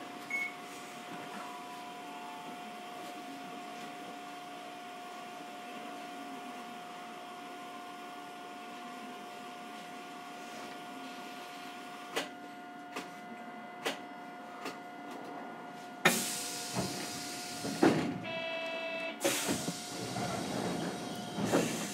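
Hiroden 3900-series tram standing at a stop: a steady hum carrying a constant whine, with a few clicks. About 16 seconds in, a sudden loud hiss of compressed air starts as the doors work, and a short buzzer tone sounds about two seconds later, before departure.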